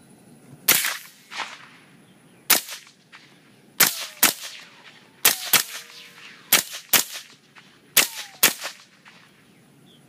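Suppressed AAC 9-inch short-barrelled rifle with an SDN-6 suppressor firing supersonic 300 Blackout: about ten sharp shots. Two single shots come first, a couple of seconds apart, then four quick pairs.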